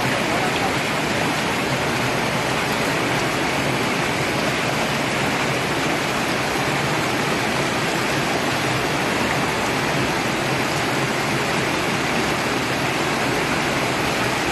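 Steady rush of water flowing through a concrete stream channel, an even, unbroken noise.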